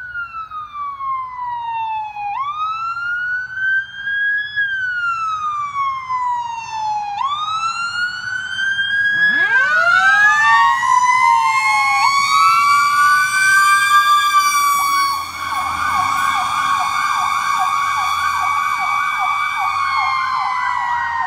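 Fire apparatus siren wailing, sweeping slowly up and down in pitch. About nine seconds in, a second siren winds up from low to a high, held wail and the sound grows louder. Later a fast pulsing yelp of about three to four pulses a second joins in.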